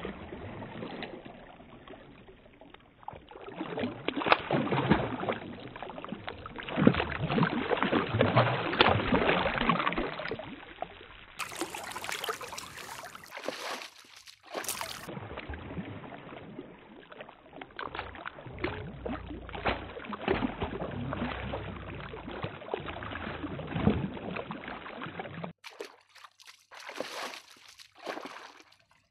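Water splashing and sloshing in a shallow river as a hooked fish thrashes at the surface, in uneven bursts with many sharp splashes. The sound changes abruptly a few times.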